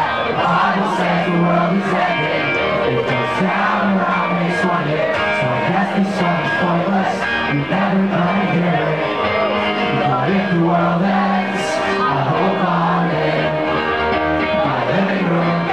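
A live rock band plays loudly in a club, with a singer and crowd voices in the mix and drum hits keeping a steady beat.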